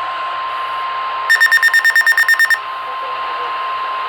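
NOAA Weather Radio warning alarm tone, a single steady 1050 Hz tone, sounding over radio hiss: the signal that a warning broadcast is about to follow. A bit over a second in, a rapid run of about a dozen loud, higher-pitched beeps, roughly ten a second, cuts across it for just over a second.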